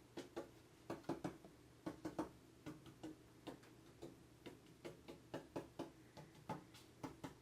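Emerson Longnose antique ceiling fan coasting down with a faint rattle: irregular clicking ticks, a few a second, over a low steady hum. The rattle is one the owner puts down to screws he loosened while trying to bend a blade.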